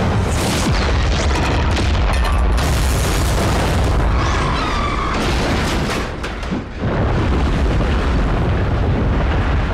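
Film sound-effect explosions: a long, deep rumble of blasts, with a brief dip about six seconds in before another blast rumbles on.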